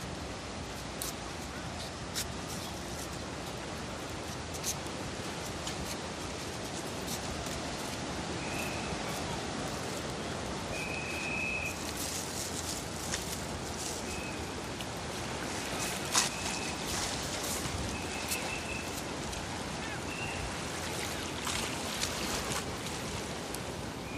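Steady rush of surf and wind on an open beach. Scattered faint clicks and about six short high-pitched chirps come through in the second half.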